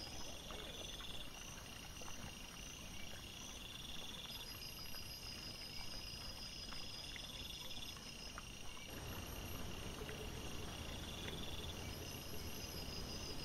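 Night insects chirping in repeated high trilled bursts about every two seconds over a steady background hiss, with scattered small clicks and rustles. The background changes about nine seconds in, and a low rumble becomes steadier.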